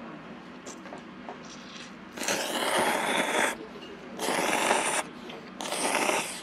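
A person slurping thin ramen noodles in three long, loud slurps, the first about two seconds in.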